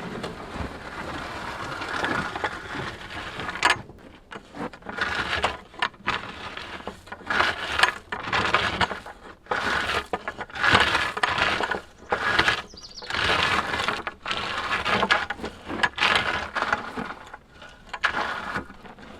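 Scraping and clattering of rock and gravel, in repeated uneven strokes about a second apart from a few seconds in, after a steadier scraping at first.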